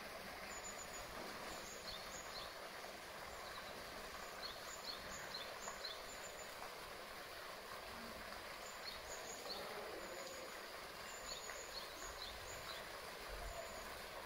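Steady outdoor background noise of water moving and splashing in a polar bear pool, with faint short high chirps scattered through it.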